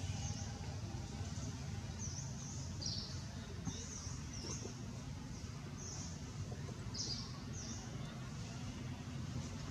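Small birds chirping: short, high chirps, mostly falling in pitch and often in quick pairs, about one or two a second, over a steady low outdoor rumble.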